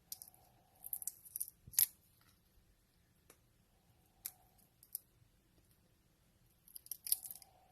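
Papery skin being peeled off garlic cloves by hand: scattered crisp crackles and clicks, in short clusters about a second in, in the middle and near the end.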